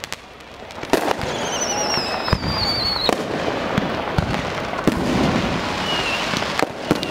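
Consumer fireworks going off close by: a bang about a second in, then dense crackling and scattered pops. A whistle falls in pitch for nearly two seconds and cuts off with a bang.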